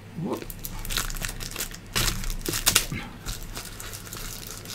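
Plastic shrink-wrap on a cardboard box crinkling as hands handle the box, in irregular crackles that are loudest about two seconds in.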